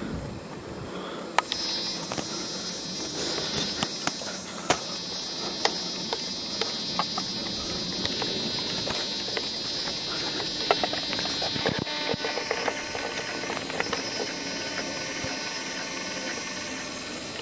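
Handling noise from a handheld camcorder: scattered clicks and knocks over a steady background, with a steady high whine that sets in about a second and a half in.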